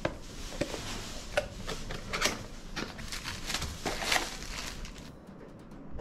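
Newly bought fishing tackle and its packaging being handled and unpacked: a string of small clicks, knocks and plastic rustling that dies down near the end.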